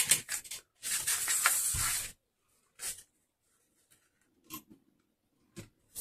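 Paper card rustling as it slides across a craft mat for about a second, followed by a few faint, separate clicks from a hand-held eyelet setting tool being positioned and squeezed to set a metal eyelet in card stock.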